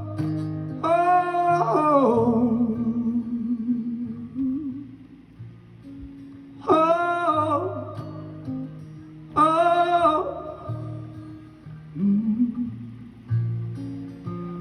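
Live rock band playing, with bass and guitar under three long held vocal notes, one about a second in and two more in the second half.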